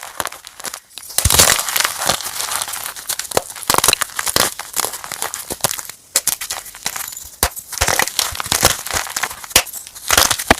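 Crispy chalk sticks being crushed and crumbled, making a dense run of dry crunching and crackling, with short breaks about a second in and around six seconds.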